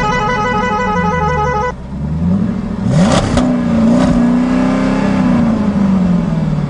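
A short jingle of quick repeated beeping notes stops about two seconds in. An engine then revs up and down, with a brief whoosh about three seconds in, holds steady, and then winds down near the end.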